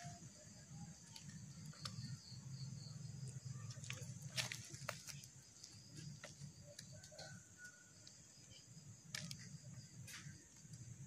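Faint rustling and handling noise with a few sharp snaps, the clearest about four seconds in and twice near the end, over a steady high insect drone.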